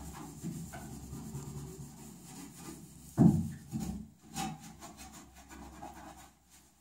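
Rubbing and scraping, with a louder scrape about three seconds in and a smaller one a second later, dying away near the end.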